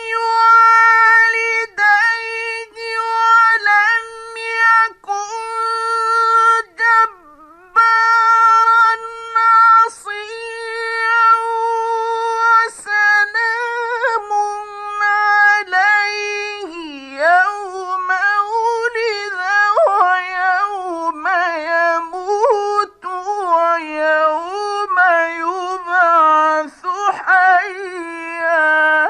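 A male Quran reciter's voice in the melodic mujawwad style, holding long, high, steady notes broken only by short breaths. About halfway through it turns into quavering ornamented runs that sink gradually in pitch, and it breaks off abruptly at the end.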